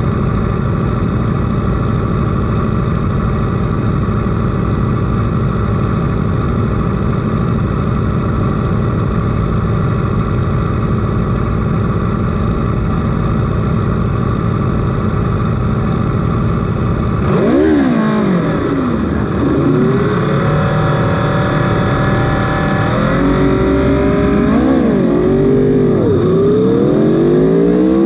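Aprilia sport bike engine, heard onboard, idling steadily, then about two-thirds of the way through pulling away hard: the revs climb and drop several times as it shifts up through the gears and is still rising at the end.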